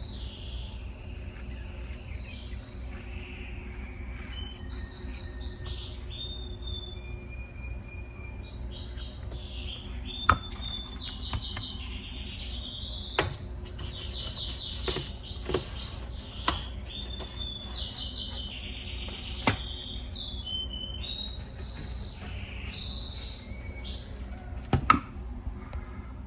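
Small birds chirping and twittering in quick runs of high calls, with a handful of sharp knocks scattered through, the loudest near the end, over a steady low hum.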